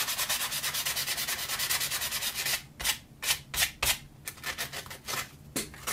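Sandpaper rubbed by hand over soft pine knife scales. It makes fast, even back-and-forth rasping strokes for the first two and a half seconds, then slower, separate strokes.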